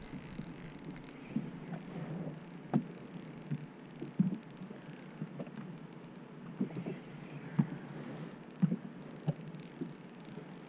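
Spinning reel being cranked to bring in a hooked fish, its gears giving a faint fine rapid ticking, with scattered short light knocks.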